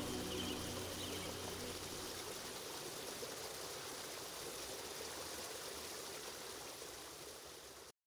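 The last notes of a slow background-music track die away in the first couple of seconds, leaving a steady rushing-water sound, like a stream, that slowly fades and cuts off abruptly just before the end.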